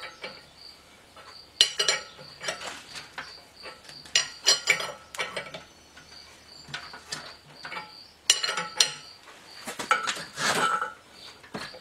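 Steel seal puller being threaded by hand into the pinion seal of a Dana 30 axle housing and then fitted with a box-end wrench: scattered bursts of metallic clinks and scrapes. A faint high chirp repeats about twice a second underneath.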